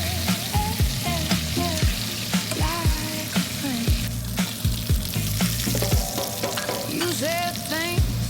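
Chicken thighs frying in a pan, a steady sizzle with some stirring, under background music with a steady beat.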